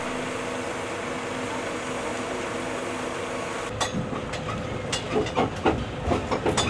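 A steady motor hum with a constant low tone, joined about four seconds in by a string of irregular sharp knocks and clicks.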